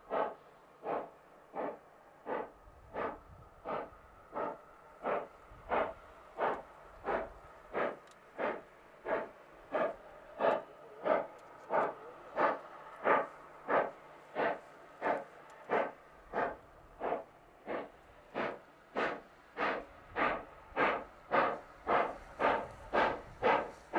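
Class 25NC steam locomotive's exhaust beating slowly and evenly, about one and a half chuffs a second, quickening slightly and growing louder toward the end.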